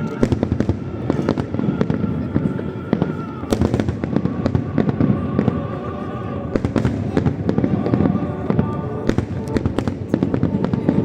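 Fireworks display bursting and crackling in rapid succession, dense bangs over a low rumble, with music of held tones underneath.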